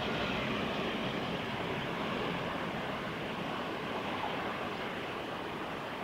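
Steady rushing of flowing river water, an even noise without distinct events.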